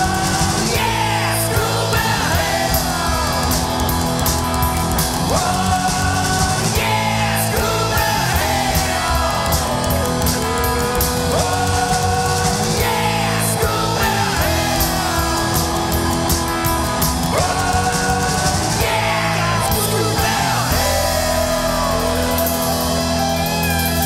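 Rock band recording, an instrumental stretch with no words: a lead line glides up and down in pitch every couple of seconds over a steady sustained backing.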